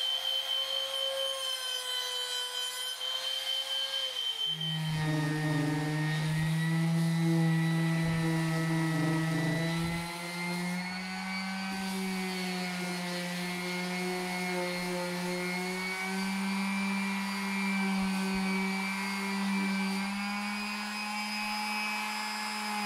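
Trim router running as it rounds over the top edges of a softwood newel post, a steady high whine that winds down about four seconds in. About a second later an electric palm sander starts on the post top and runs steadily with a lower hum for the rest.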